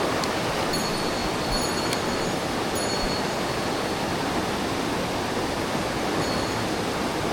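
Mountain stream water rushing steadily over rocks, a constant, even roar.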